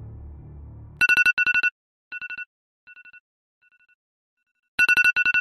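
An electronic bell-like ring sound effect, trilling rapidly at two steady pitches. It comes in two bursts, one about a second in and one near the end, each followed by quieter, fading echoes. It is the signal that the game rental time is up.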